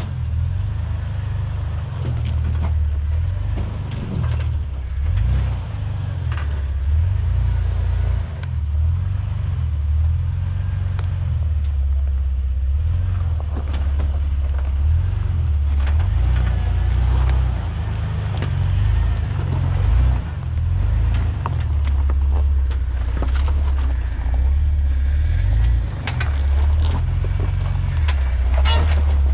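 Jeep TJ engine running at low revs as it crawls over boulders, the pitch rising and falling every few seconds with the throttle. Scattered short knocks and scrapes of tyres on rock come through over the engine.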